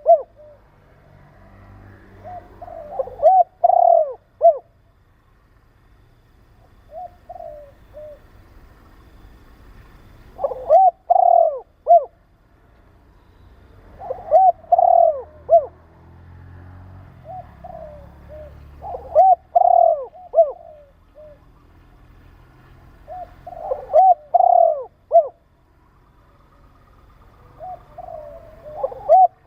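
Spotted dove cooing: a short phrase of several coos, repeated about every four to five seconds, with a couple of fainter phrases in between.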